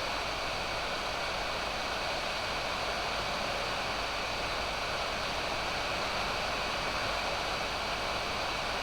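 Hot air rework station's PWM-driven BLDC fan blowing air steadily through the heater handle: an even rush of air with a thin, faint high whine.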